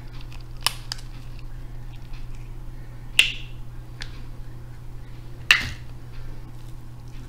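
Snow crab leg shells cracking and snapping as they are broken apart by hand: a few separate sharp cracks, the loudest about three and five and a half seconds in.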